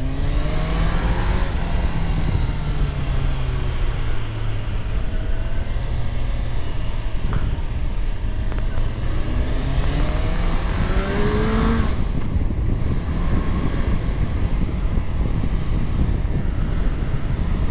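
Kawasaki Ninja 1000's inline-four engine running under way, with heavy wind noise on the microphone. The revs climb steadily for several seconds, then drop off abruptly about twelve seconds in.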